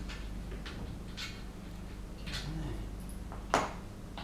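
A few sharp clicks and light knocks, the loudest about three and a half seconds in, as an angle grinder that is not running is handled against a wooden board, over a low steady hum.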